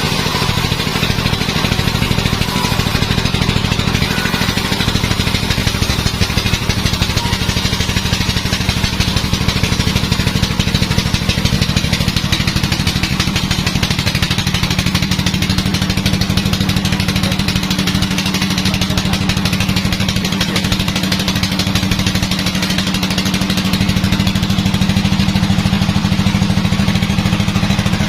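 Sawmill machinery running with a steady engine drone, its tone shifting slightly about halfway through.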